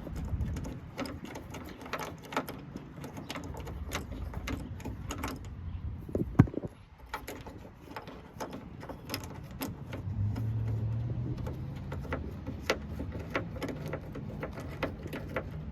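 Hand ratchet clicking in short, irregular runs while loosening a 10 mm nut, with small metal clicks and clinks, and one sharper clack about halfway through.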